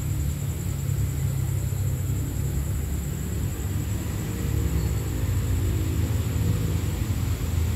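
Steady low rumble with a thin, constant high-pitched whine above it.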